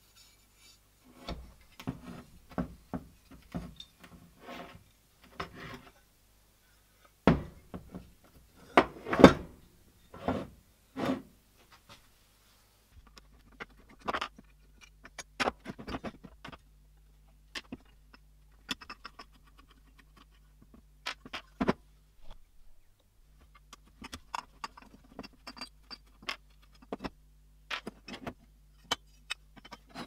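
Rusty old hand-crank coffee grinder being handled and taken apart with a screwdriver: metal parts clinking, knocking and scraping against each other and the workbench. The clicks come in a dense run in the first half, the loudest knocks near the middle of it, then sparser single clicks.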